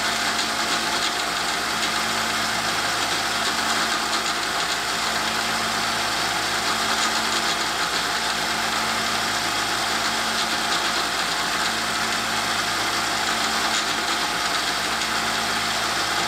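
Harbor Freight 1x30 belt sander running steadily with a stropping belt fitted, as a broadhead's edge is stropped across it with almost no pressure.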